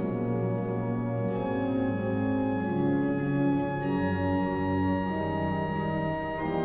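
Music: slow, sustained chords held and changing every two to three seconds.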